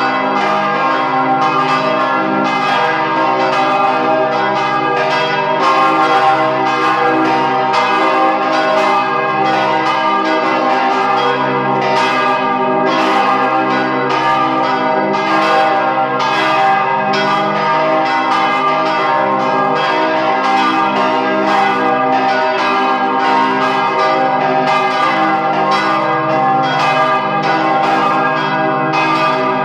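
The big swinging church bells of St. Vitus Cathedral, rung by hand from ropes, pealing loudly. Their clappers strike again and again and the strokes overlap, so the ringing hums on without a break.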